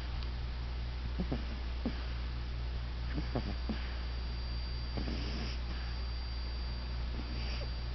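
Puggle puppy snoring in her sleep: a series of short snores every second or so, over a steady low hum.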